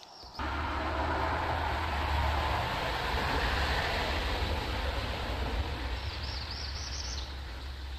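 Motor vehicle running steadily, a low engine rumble under road noise, starting suddenly and slowly fading.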